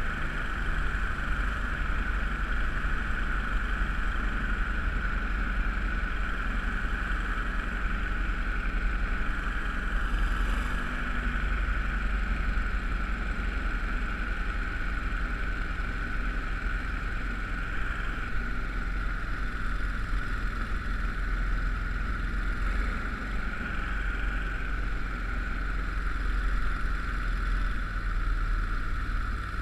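31 hp Mud Buddy mud motor running steadily at cruising speed, pushing an 18-foot jon-style duck boat upriver: an even low rumble under a steady high buzz, with no change in engine speed.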